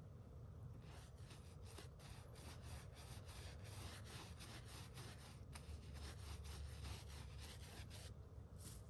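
Paintbrush scrubbing latex paint onto the end grain of a cedar log: faint, quick, repeated brush strokes starting about a second in, with a short pause near the end.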